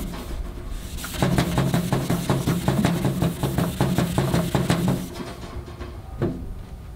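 A red Scotch-Brite pad is scrubbed back and forth by hand over the stainless steel top of a grill body, in quick rasping strokes of about four a second. This is hand-polishing to brighten the steel and lay down a grain finish. The scrubbing starts about a second in and stops about five seconds in, and a single light knock follows near the end.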